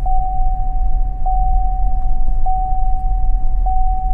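A steady high electronic tone, re-sounded a little less than once a second, over a loud low rumble.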